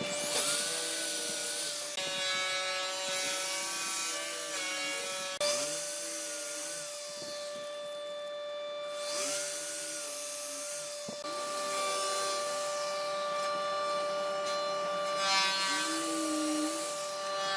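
Handheld electric power tool working wood: a steady motor whine over a rasping grind, its pitch sagging and recovering about four times as it bites into the wood and eases off.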